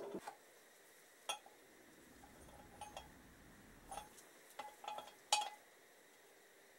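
Light metal clinks and taps, about half a dozen spread over five seconds, as small steel engine parts are handled and set down: valve buckets and shims being taken out of a shim-under-bucket cylinder head and laid out in order.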